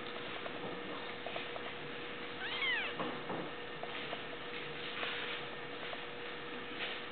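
A nursing kitten gives one short, high squeal that rises and then falls in pitch, about two and a half seconds in. A faint steady hum runs underneath.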